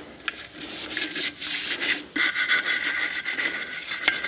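A small brush scrubbing the tight spots of a steel wheel with quick, irregular rubbing strokes, preparing the surface for paint.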